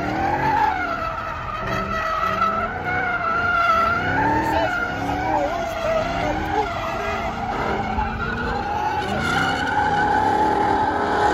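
Ford Mustang drift car's engine revving, its revs rising and falling again and again, with the tyres skidding and squealing through the slides.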